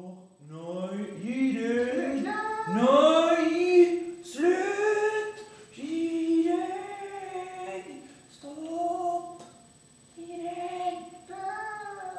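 Voices singing drawn-out, sliding notes in several short phrases with brief breaks between them.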